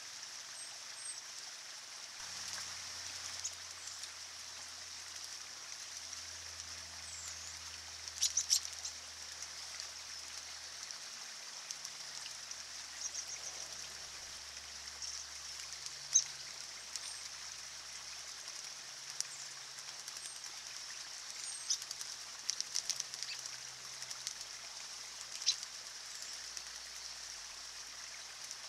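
Small man-made stream trickling steadily over rocks, with scattered short, sharp high chirps and splashes from American robins bathing in it; the loudest comes about 16 seconds in.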